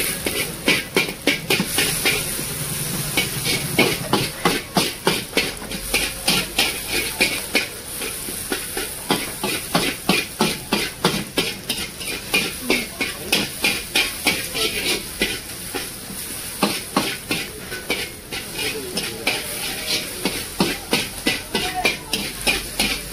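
Slotted metal spatula scraping and clanking against a large metal wok as sliced onions are stir-fried, in runs of quick, even strokes with short pauses between. Under the strokes the onions sizzle steadily in the hot pan.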